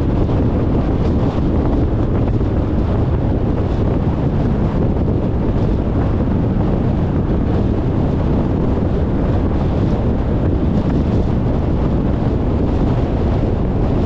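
Steady, loud rumbling of wind buffeting the microphone, heaviest in the low end, with no distinct events.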